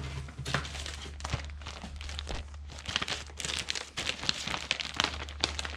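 Rustling and crinkling of packaging with many small clicks and knocks as someone rummages through it by hand, busier in the second half, over a steady low hum.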